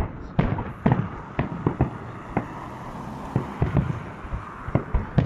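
Fireworks display: aerial shells bursting in an irregular string of a dozen or so sharp bangs and booms.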